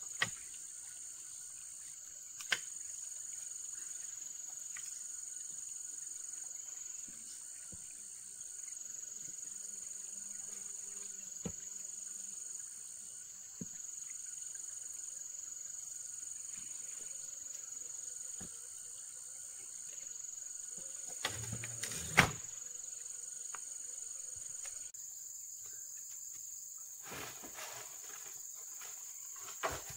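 Steady high-pitched insect chorus with a faint pulsing second layer above it, broken by a few scattered sharp knocks; the loudest knock comes about 22 seconds in. The pulsing layer stops about 25 seconds in.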